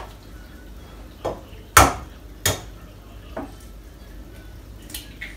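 Eggs being knocked against the rim of a glass jug to crack them: a handful of sharp, separate knocks, the loudest two close together about two seconds in.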